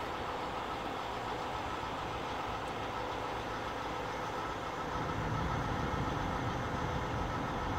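Semi-truck diesel engine idling steadily, with the low rumble growing louder about five seconds in.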